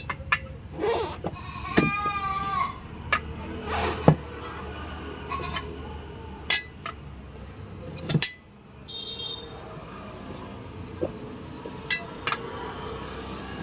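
Scattered sharp metal clinks and knocks from tyre-fitting work on a small truck wheel. About two seconds in, a short wavering bleat-like animal call.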